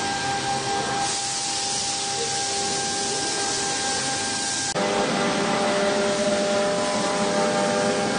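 CNC wood router spindle running with a steady whine while milling a wooden mould, with a hiss that strengthens about a second in. A little past halfway the sound changes abruptly to a louder machine noise with more whining tones.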